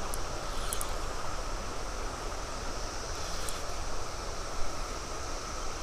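Steady rush of flowing creek water with wind rumbling on the microphone.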